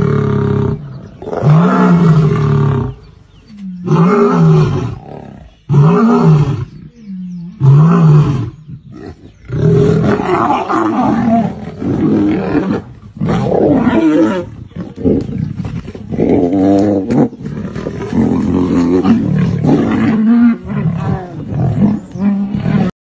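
Lions and an elephant roaring in a confrontation. First come about five loud roars, each rising and falling in pitch, roughly two seconds apart. Then a denser run of overlapping roars and growls follows, until the sound cuts off abruptly near the end.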